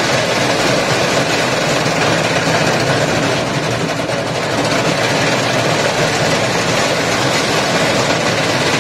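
Cotton candy machine running at speed, its motor spinning the sugar head as it spins out pink floss: a loud, steady mechanical noise.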